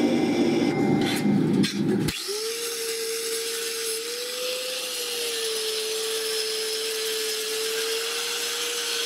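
A drill press boring through a steel plate for about two seconds. Then a sudden change to an angle grinder running with a steady whine as its disc deburrs the drilled holes.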